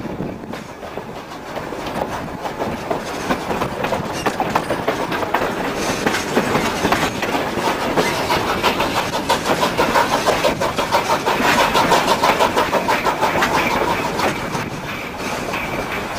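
Narrow-gauge passenger coach running along the track, its wheels clicking rapidly over the rail joints amid the rattle and rumble of the car. The sound grows louder toward the middle and eases a little near the end.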